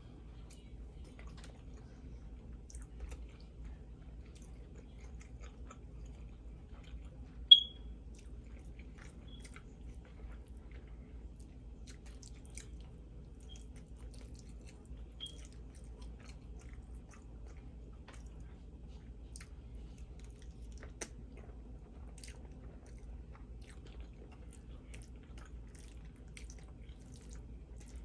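Close-up chewing and mouth sounds of a person eating spaghetti with meat sauce, with faint scattered ticks and a low steady hum. A single loud, sharp click about a quarter of the way in, and a smaller one later.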